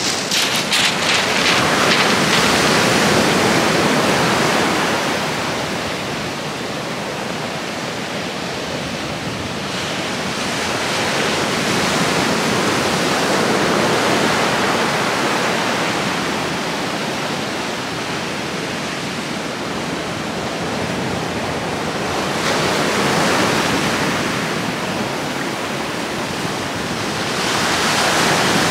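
Waves breaking on the shore: a steady rush of surf that swells and fades every several seconds.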